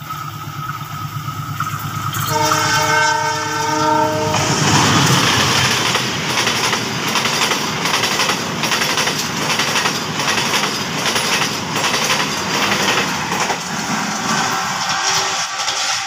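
Indonesian passenger train approaching and passing close by: the diesel-electric locomotive sounds a chord-like horn for about two seconds early on, then the coaches rush past with the wheels clattering over the rail joints in a quick, even rhythm, fading slightly near the end.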